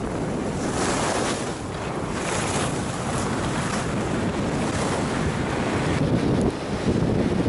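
Wind rushing over the microphone while skis hiss and scrape over groomed, packed snow on a downhill run, the noise swelling and easing with the turns.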